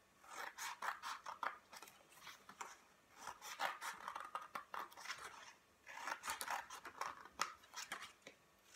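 Scissors snipping through thin coloured cardstock as small triangles are cut out along its edge. The short cuts come in quick runs with brief pauses between them.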